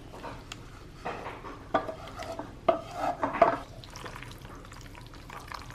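A spatula scraping and clinking against metal pans as pesto-coated cherry tomatoes are scraped from a frying pan into a stainless steel saucepan of cooked penne and stirred in. The scrapes and clinks come in a busy cluster during the first half and die down after about four seconds.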